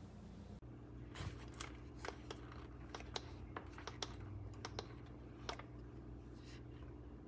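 Faint irregular light clicks and taps, about a dozen, bunched in the first two-thirds, over a steady low hum.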